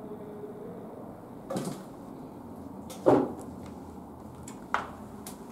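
A scrape about a second and a half in, then a sharp knock about three seconds in, the loudest sound here, and a lighter knock near the end.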